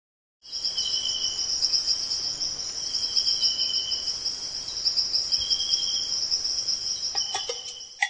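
Rainforest insect chorus: a steady, shrill, high-pitched trill, with a second, lower trill that comes and goes in phrases a few seconds apart. Knocking percussion from music comes in near the end.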